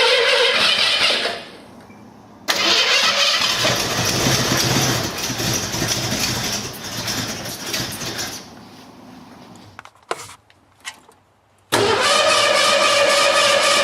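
Starter cranking the freshly rebuilt Ford 289 V8 in three bursts with short pauses, on its first start attempt. The longest, middle burst is rougher and lower before dying away, and a few clicks fall in the pause before cranking resumes. The engine does not start.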